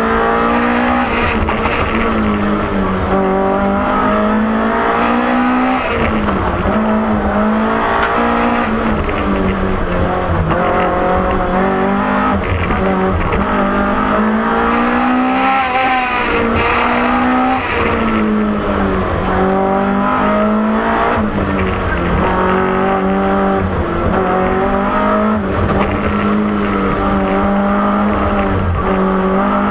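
BMW M3 E30 Group A rally car's four-cylinder engine heard from inside the cockpit, driven hard: it revs up repeatedly, with sharp drops in pitch at each gear change and falls and blips on braking, over a steady road and drivetrain rumble.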